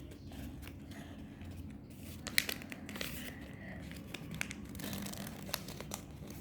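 Craft paper being folded and creased by hand: quiet crinkling and rustling with scattered sharp ticks, the sharpest about two and a half seconds in.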